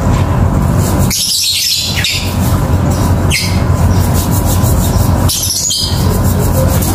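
Background music at a steady level, with chirping like birdsong in it.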